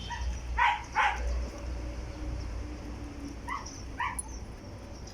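A dog barking: two quick pairs of short barks, one pair about half a second in and another about three and a half seconds in, over a steady low hum.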